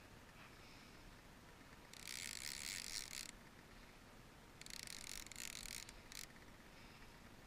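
Fishing reel buzzing in two bursts of a second or so each, a fast ticking whir as line runs through it while a fish bends the rod.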